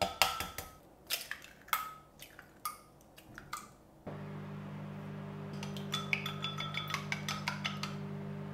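Eggs tapped and cracked on the rim of a glass measuring jug, a few sharp clinks with the glass briefly ringing. About four seconds in, a steady low hum starts, and wooden chopsticks beat the eggs in the glass jug in quick runs of clinks against the glass.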